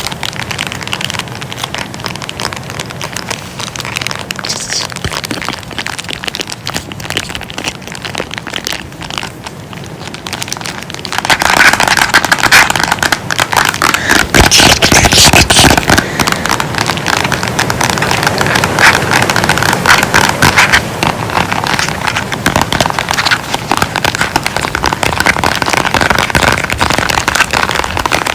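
Close-miked ASMR crinkling: a dense run of rapid crackles that gets clearly louder about eleven seconds in.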